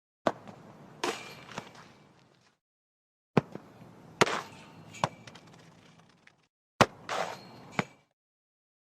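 A ball being kicked, three times in separate takes: each a sharp thud followed by one or two further knocks and a short fading rustle.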